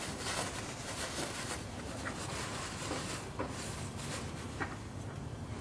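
Steady scratchy rubbing with a few faint clicks as a transmission drain bolt is threaded back in by hand.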